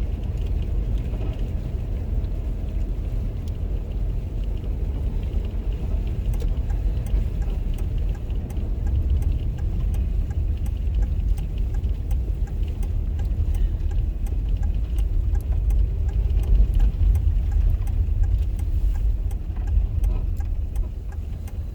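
Steady low rumble inside a car's cabin as it drives slowly over a snow-covered road, the engine and tyres running without change.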